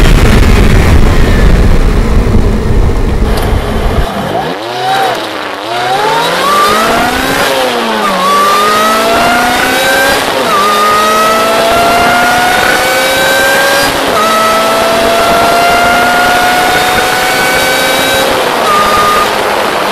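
Supercharged car engine, first a loud low rumble, then revved up and down and accelerating through the gears: a whine climbs in pitch in each gear and falls back at each of three shifts.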